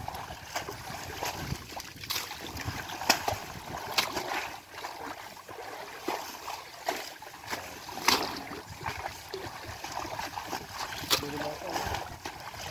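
Muddy water sloshing and splashing as people wade waist-deep and haul a mesh net through floating water hyacinth, with a few short, sharp splashes standing out every few seconds.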